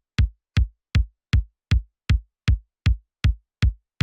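A lone kick drum from a recorded live drum kit playing a steady straight beat on the tempo, about two and a half hits a second. Each hit is a short click with a low boom that dies away quickly.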